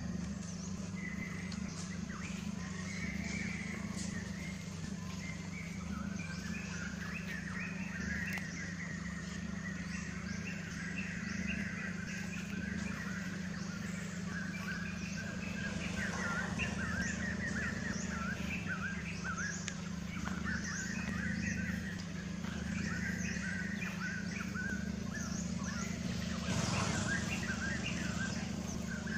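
Outdoor ambience with many birds chirping in quick, overlapping calls over a steady low hum.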